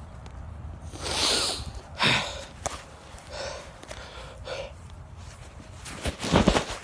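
A person breathing hard, with a few loud exhales, after carrying a heavy load. Rustling and knocks near the end.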